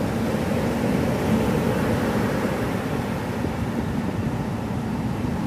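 Ocean surf breaking and washing up a beach: a steady wash of noise that swells a little about a second in.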